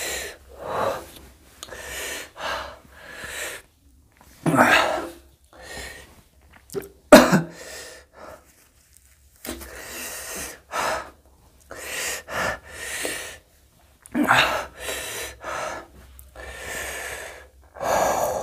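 A man breathing out hard in repeated noisy puffs and sniffling, with one sharp sneeze about seven seconds in, the loudest sound. It is his reaction to a mouth burned by very hot green chillies.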